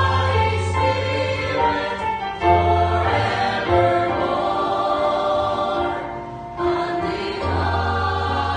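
Mixed choir of women's and men's voices singing a hymn in held, sustained notes, over a low bass tone that drops out for a few seconds in the middle.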